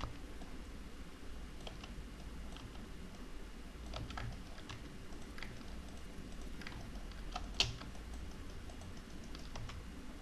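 Faint, irregular clicks of a computer keyboard and mouse, with one sharper click about three-quarters of the way through, over a low steady hum.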